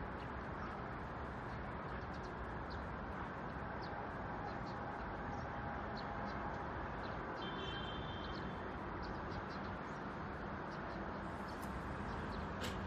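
Scattered short bird chirps over a steady low outdoor rumble, with one brief held high call about eight seconds in and a sharp click near the end.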